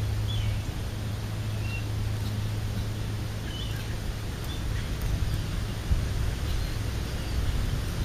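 Steady low rumbling background noise, with a few faint, short high bird chirps scattered through it and an occasional low thump.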